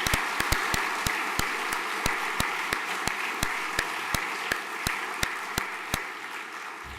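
Audience applause from a school assembly hall, a dense even clapping with a few louder individual claps standing out, dying away over the last second or so.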